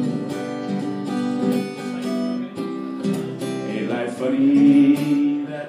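Acoustic guitar strummed in a short instrumental passage between sung lines of a song.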